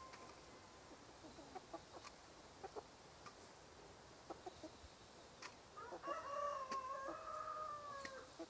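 Free-range chickens clucking quietly with scattered short sounds, then a rooster crows once, a long call of about two seconds that begins a little past the middle and trails off near the end.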